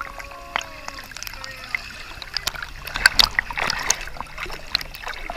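River water splashing and sloshing as a person moves and swims in it, with a louder run of splashes about three seconds in.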